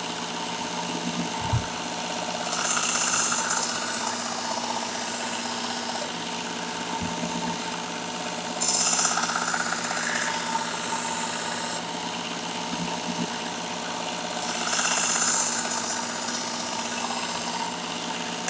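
Work Sharp Ken Onion Edition knife sharpener with its Blade Grinding Attachment running steadily at raised speed on a medium-grit belt. A steel chef knife blade is drawn across the belt in three passes, each adding a grinding hiss.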